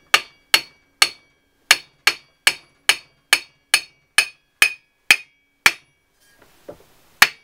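A Holden Commodore steel tailshaft being knocked repeatedly to drive a new centre bearing onto it, about two and a half blows a second, each with a short metallic ring. The blows pause for about a second and a half near the end, then start again.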